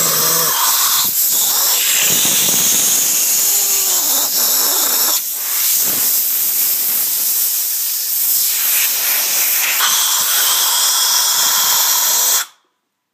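Compressed-air blow gun hissing loudly as its jet is aimed at a face and mouth, then shut off abruptly near the end.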